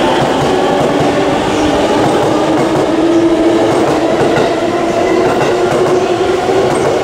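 JR East E257 series electric train passing close by, its wheels running steadily over the rails with a low steady hum under the running noise.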